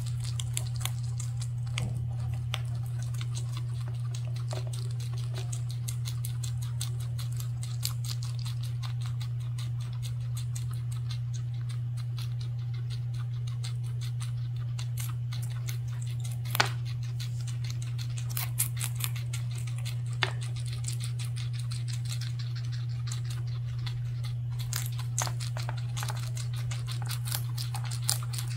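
Two guinea pigs chewing crisp crown daisy (tong ho) stems and leaves: quick crunching clicks that come in clusters, with a few sharper snaps, over a steady low hum.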